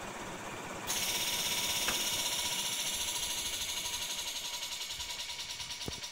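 Hitachi 7.5 kW (10 hp) package air compressor running, then a sudden loud hiss of air about a second in, as discharge pressure tops out near 0.83 MPa and the compressor unloads. The hiss slowly fades into a quick, even pulsing.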